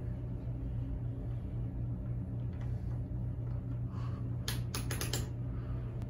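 Leslie Locke Play It Again Sam ceiling fan running with a steady motor hum. Late on, a quick run of about five sharp clicks.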